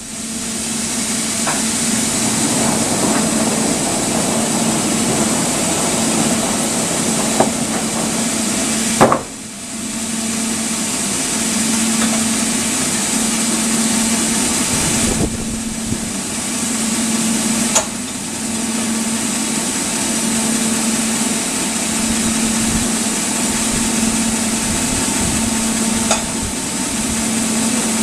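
Sawmill machinery running steadily: a loud, even hiss over a low hum, with a short drop about nine seconds in and a few sharp clicks.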